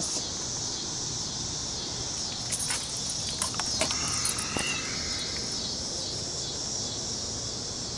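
Steady high-pitched chirring of evening insects, with a few clicks and light rattles about three to four and a half seconds in.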